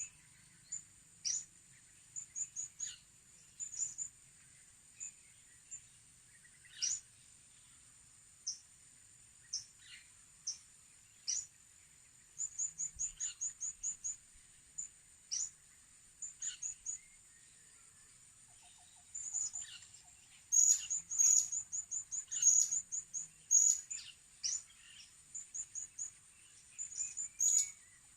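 Blue-crowned hanging parrots (serindit) calling: very high, thin chirps in quick runs and sharp downward squeaks, growing busier and louder about two-thirds of the way through. A steady high whine runs underneath.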